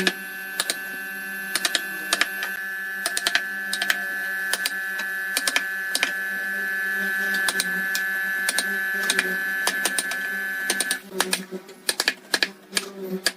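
A motor hums steadily under many irregular sharp clicks and taps. About eleven seconds in, the hum stops while the clicking goes on.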